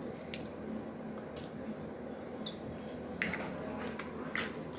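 A few scattered light clicks and taps of kitchen utensils over a quiet steady room background, as the batter for semolina dumplings is being prepared.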